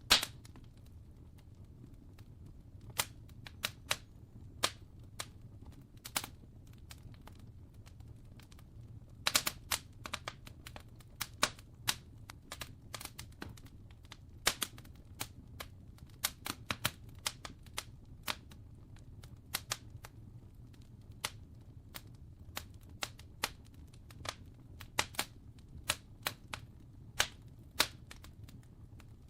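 Wood fire crackling: irregular sharp pops and snaps, some close together and some spaced seconds apart, over a steady low rumble.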